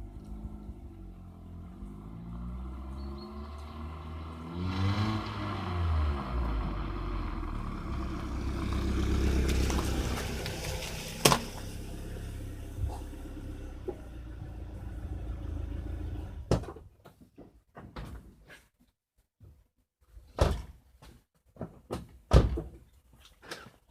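BMW M44 four-cylinder engine of an E36 with its catalytic converters deleted, running with its pitch rising and falling, plus one sharp click partway through. The engine sound stops abruptly about sixteen seconds in, leaving scattered knocks and clicks.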